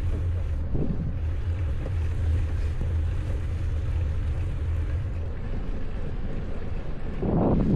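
Wind buffeting an action camera's microphone while cycling, a steady low rumble that grows louder near the end.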